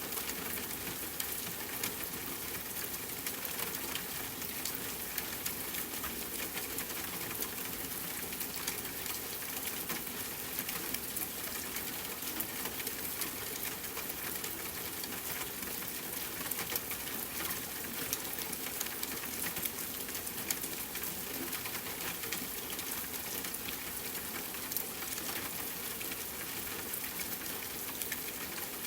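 Steady rainfall hiss blended with a crackling wood fire, small snaps and pops scattered all through.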